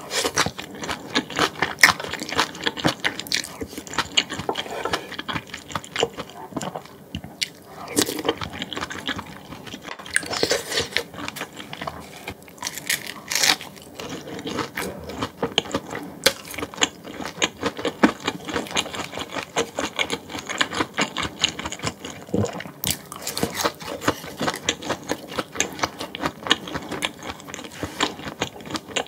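Close-miked eating: steady chewing and crunching of food, a dense run of small clicks and crackles, with a few sharper crunches now and then.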